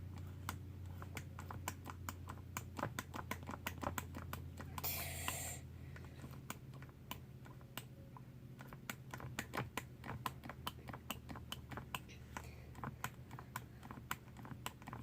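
Quick light clicks and taps, a few a second, of a mixing utensil against a bowl as shampoo is worked around in it, with a short hiss about five seconds in.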